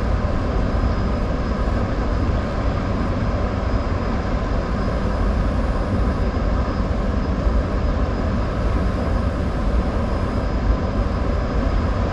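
Steady rumbling, rushing background noise below a river dam, heaviest in the low end, with no distinct events.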